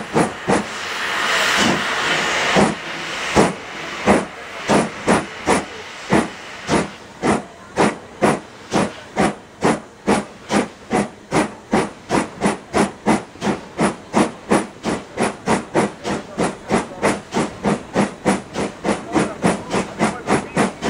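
FS Gr. 625 steam locomotive pulling away from a standstill. Steam hisses loudly at first, then the exhaust beats quicken from about one a second to roughly three a second as the train gathers speed.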